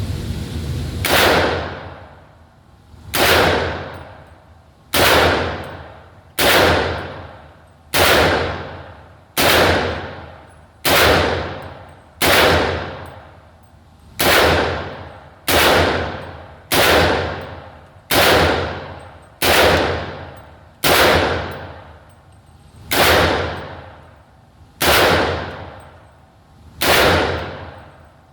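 Slow, evenly paced single shots from a gun, about seventeen of them, roughly one every second and a half, each sharp crack ringing out and fading over about a second.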